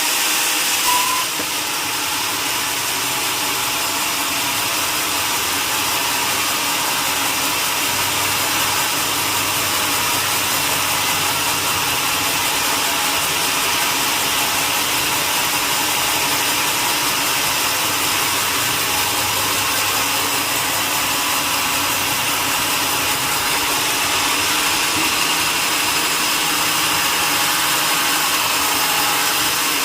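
Sawmill saw machinery running steadily as it saws a mahogany log, a continuous even mechanical noise.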